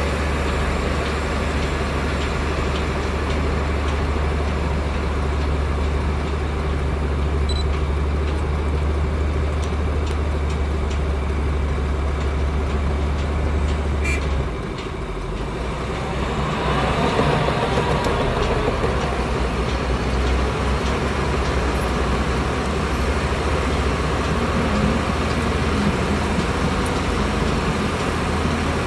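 Heavy diesel engine of a bulldozer running steadily. About halfway through the engine note drops for a moment, then picks up and runs harder again.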